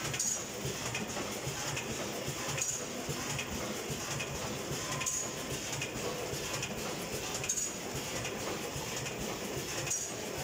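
Vertical form-fill-seal packing machine running, a steady mechanical clatter with a short high hiss that repeats about every two and a half seconds, in time with its bagging cycle.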